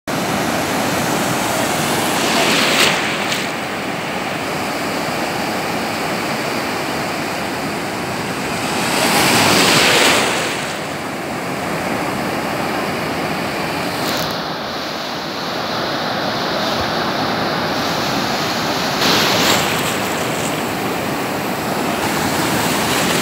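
Ocean surf breaking on a beach: a continuous wash of waves and white water, swelling with louder breakers about three seconds in, around ten seconds (the loudest) and again near nineteen seconds.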